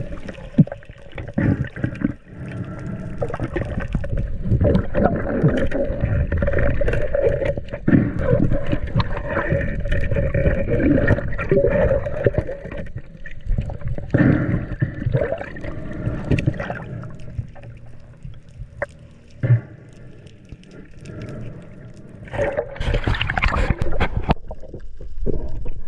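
Muffled underwater noise picked up through an action camera's housing: water movement with a steady low rush and scattered knocks and clicks from handling the speargun, quieter for a few seconds past the middle.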